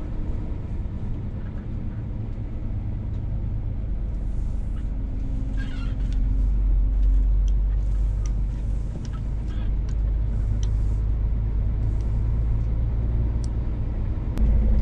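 Scania S500 truck's diesel engine and road noise heard from inside the cab while driving: a steady low drone that grows louder about six seconds in, with a few light clicks.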